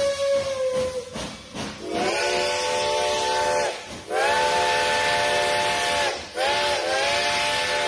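Reading T-1 4-8-4 No. 2102's chime steam whistle blown three times, each blast sliding up in pitch as it opens and then holding a steady chord, over the hiss of escaping steam.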